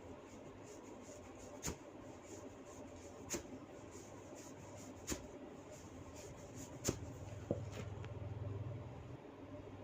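Long hair being handled in a head massage, with a sharp crack every second and a half to two seconds, five in all: hair cracking, where strands are twisted and tugged until they snap. A low rumble runs for about two seconds near the end.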